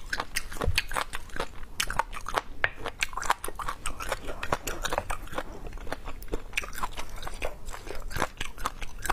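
Close-miked chewing of spicy braised beef bone marrow, a quick, uneven run of wet mouth clicks and smacks.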